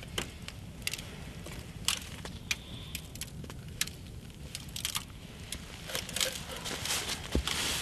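Irregular crackles and clicks, denser near the end, as a partly frozen whole raw rooster is forced onto a wooden spit over aluminium foil, with a campfire burning close by; a dull knock comes near the end.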